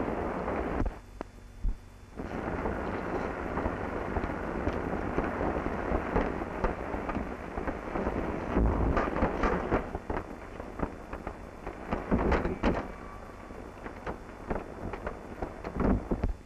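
Rumbling, crackling noise of an old film soundtrack, with many scattered clicks and thumps. It drops out briefly about a second in.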